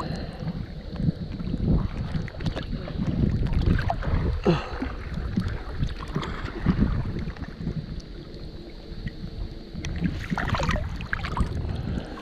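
Water sloshing and splashing around people wading and swimming through a deep creek pool, with wind rumbling on the microphone.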